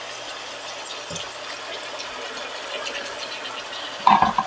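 Tomato masala with water simmering and sizzling in a kadai, a steady hiss. Near the end comes a brief, louder clatter from the pan.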